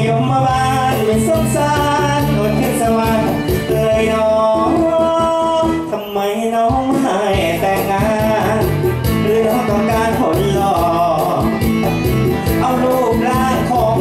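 Live Thai luk thung band music played loud through a stage PA, with a male singer singing over it.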